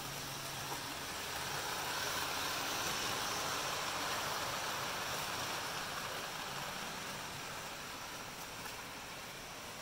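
Model train running past on the layout: the steady rolling rumble of its wheels on the track, swelling as the passenger cars go by and then slowly fading.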